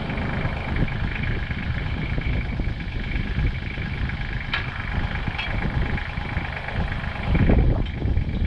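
Engine of a piece of compact heavy equipment running steadily at a low rumble, with a couple of light clicks midway and a louder surge near the end.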